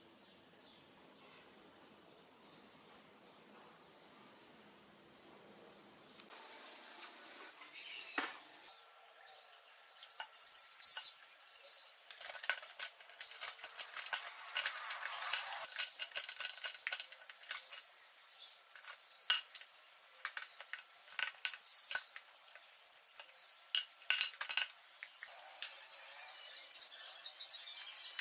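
Metal parts and tools clinking, clicking and tapping against one another as lathe components are handled and fitted. The sound is sparse at first and grows busier with many sharp clicks from about eight seconds in.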